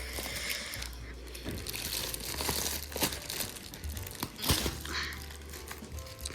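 Plastic toy packaging crinkling and rustling as it is handled and pulled at to open it, with a few sharp cracks.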